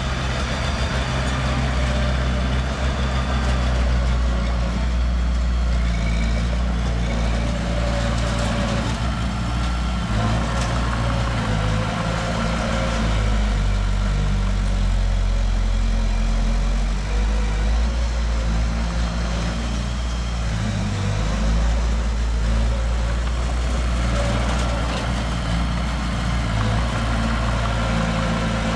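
Heavy diesel engine of earthmoving machinery running steadily at low revs, with an even, low engine note.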